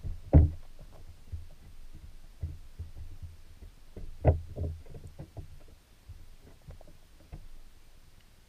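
Muffled, irregular low thumps and knocks picked up underwater inside a wire-mesh minnow trap, with two louder knocks about half a second in and about four seconds in.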